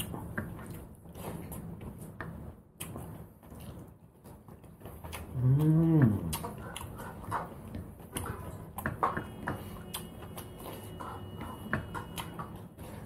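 Eating sounds: wet chewing and lip smacks as rice and curry are mixed and eaten by hand. About halfway there is one short hummed vocal sound from the eater, rising then falling in pitch, the loudest sound.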